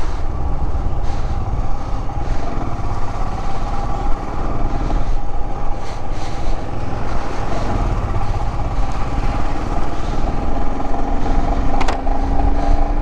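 Royal Enfield Himalayan 411's single-cylinder engine running steadily under way on the road, heard from the moving bike with a dense low rumble. A sharp click comes near the end, and the engine note then climbs as the bike accelerates.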